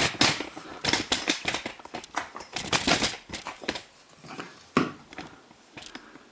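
Handling noise from the washing machine motor just taken off its mounts: a quick, irregular run of knocks and clatters, thinning to a couple of single knocks and then fading out.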